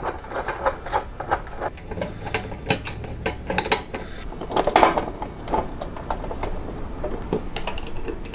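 Metal hand tools and parts clicking and clattering in irregular bursts of small sharp knocks, with one louder, briefly ringing metal clank about five seconds in.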